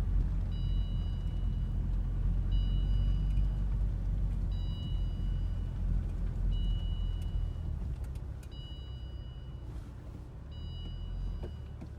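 UAZ Patriot heard from inside the cabin while driving slowly across a field: a low rumble of engine and tyres that eases off about two-thirds of the way through. Over it, a high electronic beep repeats about once every two seconds.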